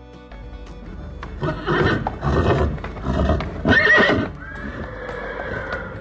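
Horse neighing: a run of loud, shaking whinny pulses, then one long high drawn-out note that sags a little at the end.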